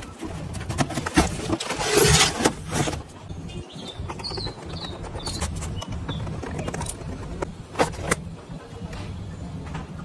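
Cardboard packaging being handled as a toy ambulance is taken out of its box and cardboard insert. There is a stretch of scraping rustles about one to three seconds in, then scattered sharp clicks, two close together near the end, over a steady low hum.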